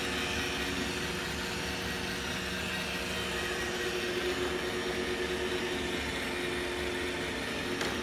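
iRobot Roomba i1+ robot vacuum running on a tile floor: a steady whir from its vacuum motor and brushes, with a steady hum of a few pitches underneath.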